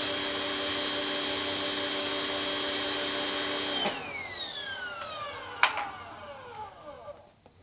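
Westinghouse ePX3500 electric pressure washer's motor running with a steady whine, then switching off with a click about four seconds in and spinning down in a falling whine. A sharp click follows a couple of seconds later.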